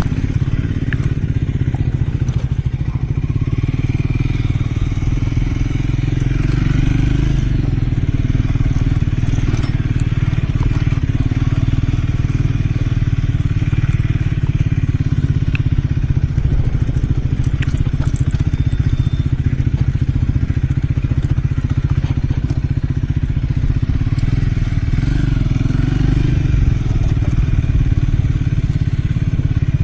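Triumph Scrambler 400 X's single-cylinder engine and exhaust running steadily while riding, with a few sharp clicks here and there.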